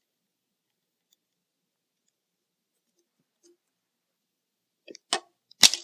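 Electrician's pliers cutting through a threaded bolt: a couple of small clicks, then a single sharp, loud snap near the end as the bolt is cut through.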